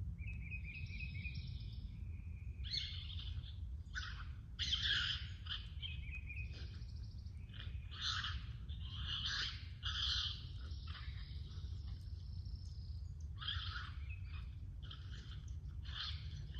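Harsh, squawking bird calls repeated one after another, over a steady low rumble.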